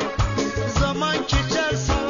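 Song music: a wavering melody line over a steady, evenly repeating drum beat.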